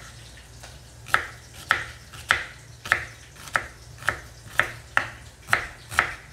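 Kitchen knife slicing a red onion on a wooden chopping board, the blade knocking the board in an even rhythm of about two strokes a second, starting about a second in.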